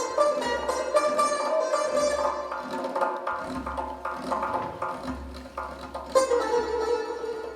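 Persian music on a plucked string instrument: a stream of quickly plucked melody notes, with a strong new phrase struck about six seconds in.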